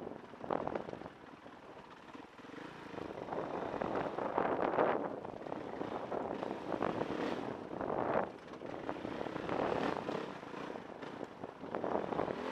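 Dirt bike engine running as it is ridden over a rough rocky trail, rising and falling in swells every second or two with the throttle.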